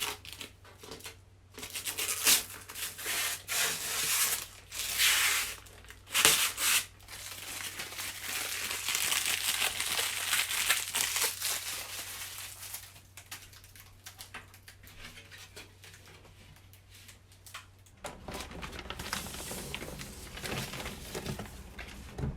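Plastic packaging being handled, crinkling and tearing in irregular rustles, with a longer continuous stretch of tearing or rustling in the middle.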